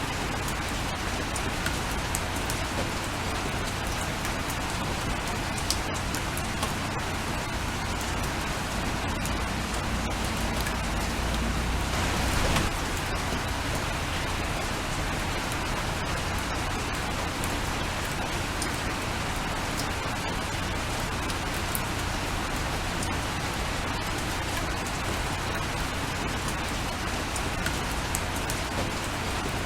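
Steady rain falling, with scattered individual drops ticking. It swells briefly louder about twelve seconds in.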